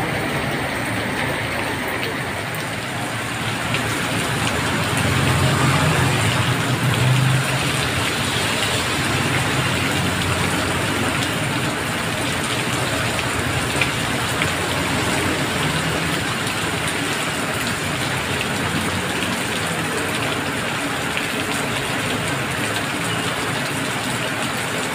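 Heavy rain pouring steadily onto a road, with motorcycles and cars passing through the standing water. A vehicle passing louder about five to seven seconds in adds a low rumble and tyre swish.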